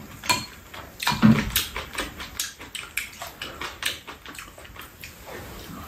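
Eating rice cake soup: slurping and chewing, with spoons and chopsticks clicking against the bowls, the loudest slurp about a second in.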